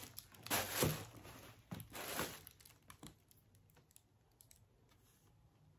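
Packaging rustling and crinkling as a pair of heeled shoes is handled and lifted out of the box, in a few short bursts over the first two seconds or so, then near silence.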